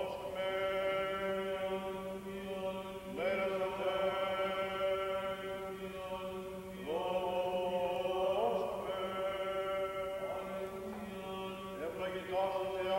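A single voice singing Byzantine chant of the Greek Orthodox baptism service: long held notes in several phrases, each sliding up into its note, over a steady low hum.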